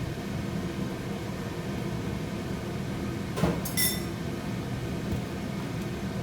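Steady low hum of kitchen noise while vegetables cook in a pan, with a knock and a short ringing clink of a utensil against a pan or jar about three and a half seconds in.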